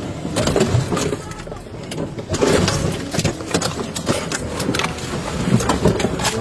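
Car engine running amid repeated knocks and bangs as vehicles press and jostle against each other in a collision, heard from inside a police cruiser.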